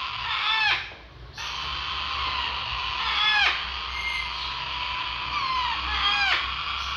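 Baby parrots begging for food: a steady, raspy chorus of chick cries with loud, downward-sliding calls breaking through it several times. There is a brief lull about a second in.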